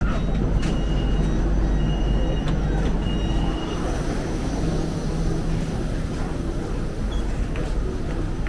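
Metro train running with a steady low rumble, with a high electronic beep sounding three times in the first three seconds. The low rumble drops away about three and a half seconds in, leaving a steady station hum.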